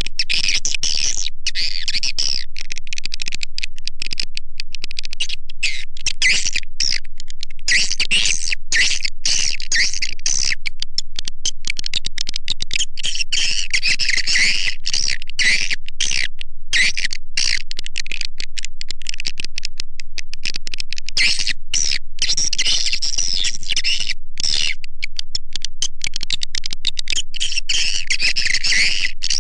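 Recorded edible-nest swiftlet lure call: a dense, continuous twittering chatter of many rapid high-pitched calls, played loud and steady, as used by swiftlet farmers to draw swiftlets into a bird house.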